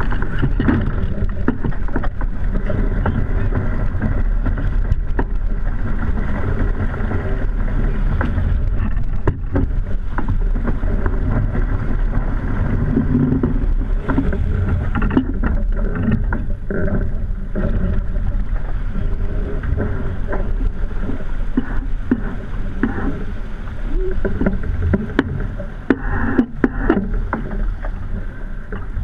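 Sailing yacht under way in strong wind and rough water: a steady low rumble of wind on the microphone and rushing water, broken by scattered knocks and thuds.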